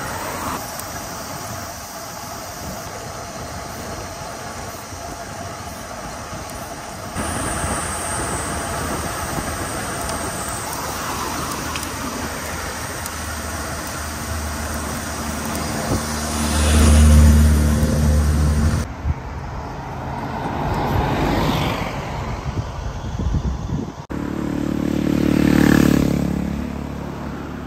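Road traffic: motor vehicles passing close by over a steady road noise. The loudest pass comes about two-thirds of the way through, with two more swelling and fading near the end.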